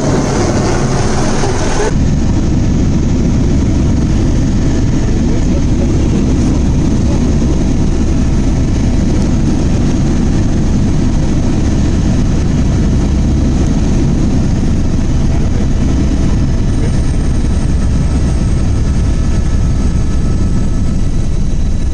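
Helicopter running: a loud, steady noise heavy in the low end, with a higher hiss over it for the first couple of seconds that then drops away.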